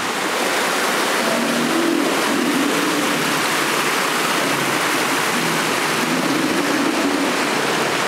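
Waterfall water pouring and splashing close by: a loud, steady rush.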